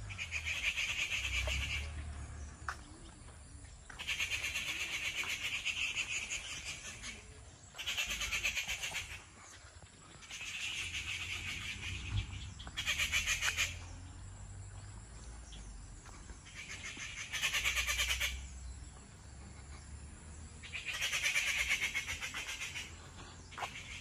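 Animal calls from the trees, in repeated high, rapidly pulsing bursts of one to two seconds each, coming every few seconds, over a low rumble.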